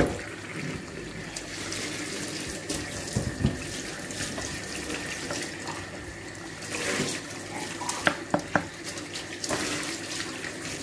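Water pouring from a jug into a steel pot of chicken and potato curry, splashing into the gravy. Later there are a few sharp knocks as the curry is stirred with a wooden spatula.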